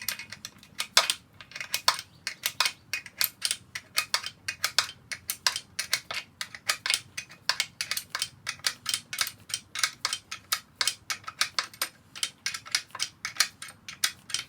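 Rapid, irregular sharp metallic clicks, several a second, from hand tools working on an air-cooled VW engine's crankcase during disassembly.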